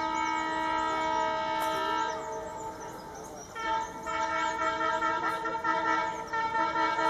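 WDM-3A diesel locomotive's horn blowing two long blasts: one lasting about two seconds and dying away, then a second starting about three and a half seconds in and held on.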